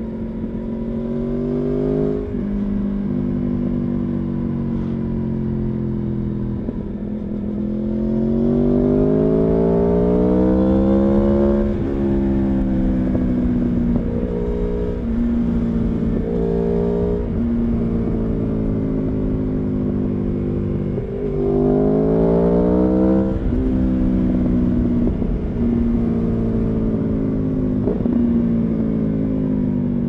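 Aprilia Tuono V4 motorcycle's V4 engine under way, pulling up through the revs in two long rises with a sharp drop in pitch at each gear change, and shorter rev changes between stretches of steady running.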